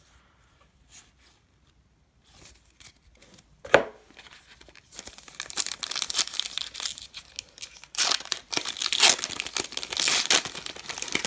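Foil wrapper of a Diamond Kings baseball card pack being torn open and crinkled, building to its loudest crackling near the end. Before that, after a quiet start, comes a single sharp tap a little under four seconds in.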